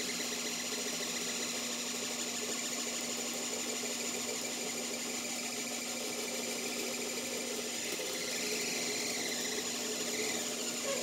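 AxiDraw pen plotter's stepper motors running as the pen draws a spiral: a steady mechanical hum with a faint whine that slides up and back down in pitch near the end.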